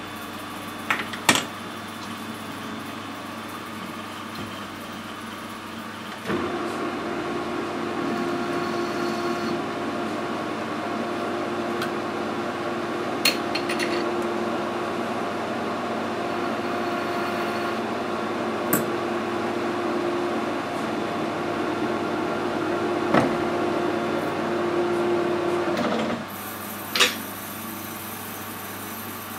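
Metal lathe starting about six seconds in and running steadily with a humming tone while it machines a piece of heavy-wall aluminium tube, then stopping abruptly near the end. Sharp metallic clicks shortly before it starts and just after it stops come from handling the chuck.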